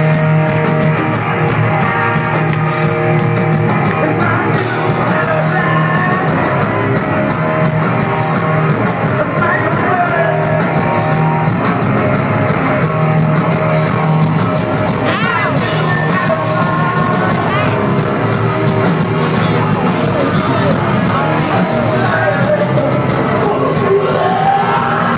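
Live heavy rock band playing loudly through a PA: guitars, bass and drums with regular cymbal crashes, and a singer's voice sliding in and out over it.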